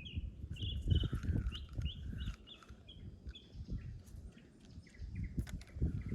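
A bird calling outdoors in a quick run of short chirps, thickest in the first three seconds and sparser after that, over a low rumbling background noise.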